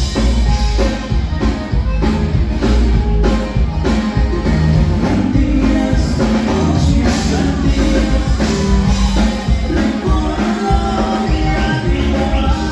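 Live conjunto band playing a dance number: a steady drum-kit beat and bass under an accordion-led melody, with singing.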